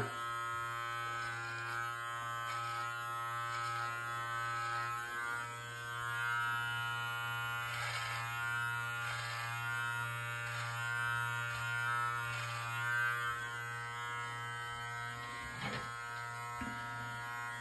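Live Bearded MT-1 electric beard trimmer with a 12 mm guard buzzing steadily while cutting the hair at the side of the head. Its pitch holds steady, and the level rises and falls slightly as it is moved through the hair.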